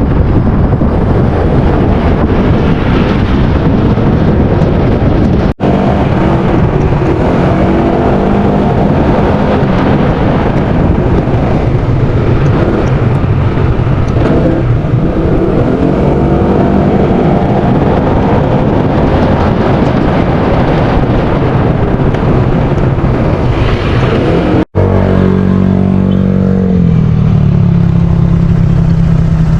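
A motor engine running loudly, its pitch rising and falling with the throttle, then settling lower and steady near the end. The sound cuts out very briefly twice.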